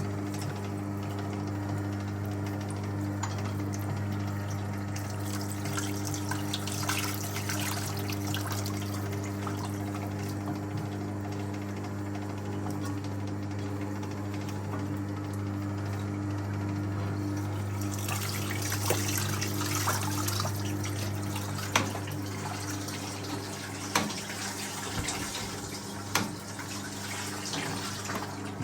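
1958 Hotpoint Empress washing machine running with a steady motor hum as towels go through its power wringer, water running and splashing as it is squeezed out of them. A few sharp knocks come in the last third.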